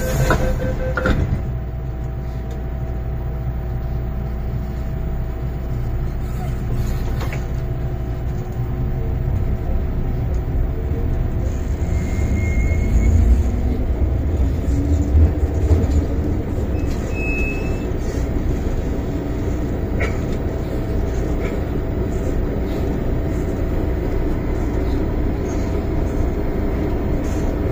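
Tsuen Wan Line M-Train electric metro train running, heard inside the passenger car as a steady rumble. A low whine rises in pitch a little after ten seconds in.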